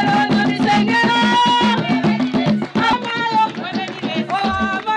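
A woman singing a Zambian kitchen-party song into a microphone over amplified music with a steady drum beat.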